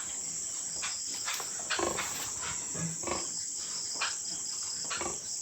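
Steady high chirring of crickets, with pigs grunting briefly several times over it. These come from a sow and her newborn piglets suckling.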